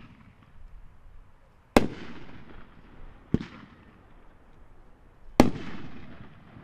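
Dominator 'Mammoth Brocade' 500-gram fireworks cake firing: three sharp booms about a second and a half to two seconds apart, the first and last loudest, each trailing off in a fading rumble, with a few small pops before the first.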